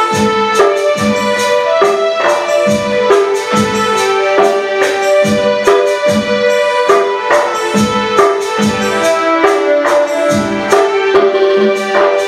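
Music from a Nepali song: held melodic notes over a steady beat, about three beats every two seconds.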